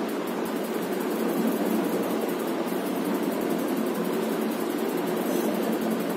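Steady, even mechanical noise with no clear beat.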